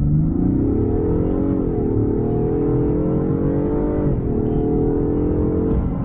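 2021 Ford F-150 PowerBoost hybrid's 3.5-litre twin-turbo V6 accelerating at full throttle in a 0–60 mph run, heard from inside the cab. The engine note climbs, drops at an upshift about a second and a half in, climbs again, and drops at a second upshift about four seconds in.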